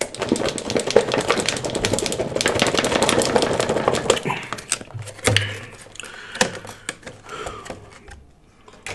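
Clear plastic clamshell salad container crackling and clicking rapidly as it is handled and shaken, for about four seconds. After that come scattered clicks and creaks as the lid is worked loose and pulled off.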